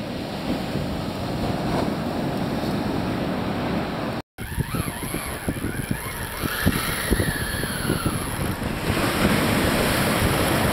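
Wind buffeting the microphone over the wash of breaking surf, a steady rumbling noise. The sound drops out for a moment about four seconds in, then carries on.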